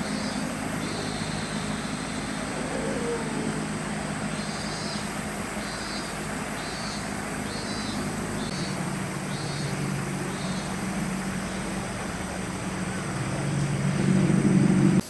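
Outdoor ambience: a steady low motor or vehicle hum over a wash of noise, with short high chirps repeating about every two-thirds of a second. The hum swells louder near the end and cuts off suddenly.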